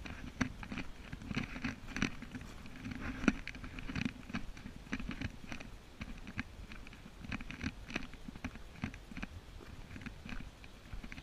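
Irregular rustling and soft taps of footsteps through grass, with handling noise from a handheld camera: uneven clicks about one or two a second.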